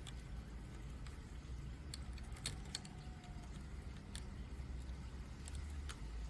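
Lego plastic pieces clicking and tapping as they are handled and snapped together: a handful of sharp, separate clicks spread through, over a steady low hum.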